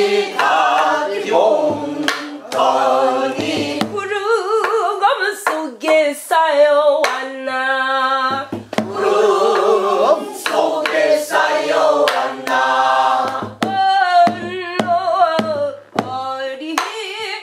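Group of voices singing a Korean folk song (Namdo minyo) in a heavy vibrato style, with sharp percussive beats marking the rhythm.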